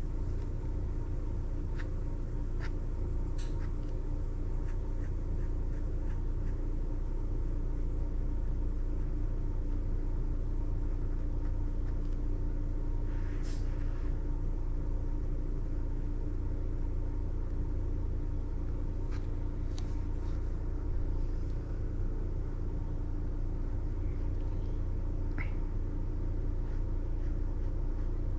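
Steady low background rumble with a faint steady hum, and a few faint short scratches of a pen on sketchbook paper.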